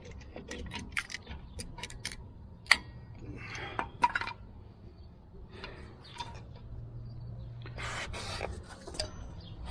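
Scattered sharp metal clicks and short scrapes of channel-lock pliers being worked and clamped onto a rear drum brake's parking brake cable, over a faint steady low hum.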